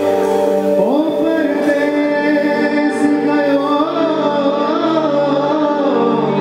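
Music: steady held backing chords with a singing voice that slides up into its first note about a second in, then holds long, wavering notes.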